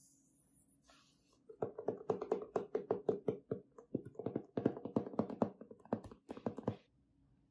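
Fingers tapping quickly on a cardboard laptop box, about five or six knocks a second. The tapping starts about a second and a half in and stops shortly before the end.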